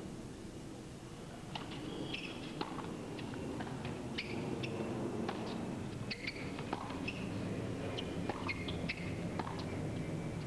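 Hard-court tennis point heard over a low crowd murmur: sharp pops of the ball off racket and court, with short high squeaks of shoes on the court surface, starting about a second and a half in.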